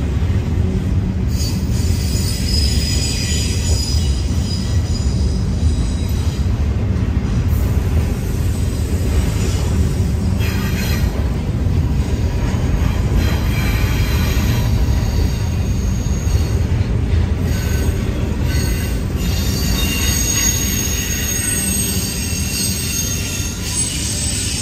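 CSX double-stack intermodal well cars rolling past close by: a steady low rumble of wheels on rail, with high-pitched wheel squeal coming and going, strongest in the first few seconds and again near the end.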